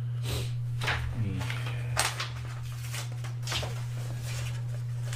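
Pages of a large paperback book being turned and pressed flat by hand: a handful of short papery rustles, about five in all, over a steady low hum.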